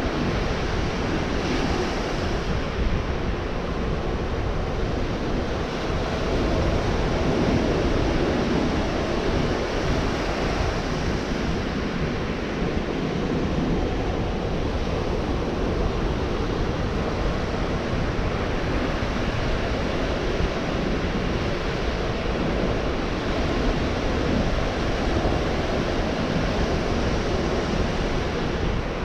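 Gulf of Mexico surf: waves breaking and washing up the beach in a continuous rush that swells and eases slowly, with some wind noise on the microphone.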